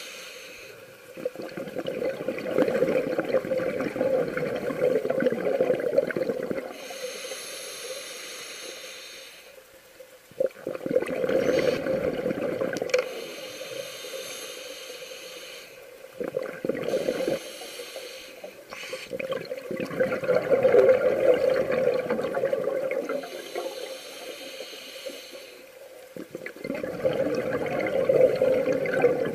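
A scuba diver breathing through a regulator underwater: slow cycles of a hissing inhale followed by a longer rush of exhaled bubbles, four exhales in all.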